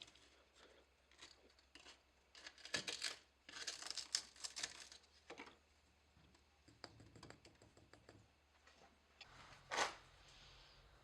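Faint, intermittent crinkling and rustling with a few small clicks, in short bursts: loose crucible charge, such as crushed glass, being handled and tipped into a crucible.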